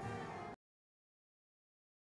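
Orchestral background music with strings that cuts off abruptly about half a second in, followed by total silence.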